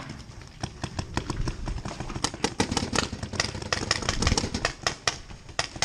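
A rapid, irregular clatter of sharp clicks and knocks, several a second, which grows denser and louder about two seconds in.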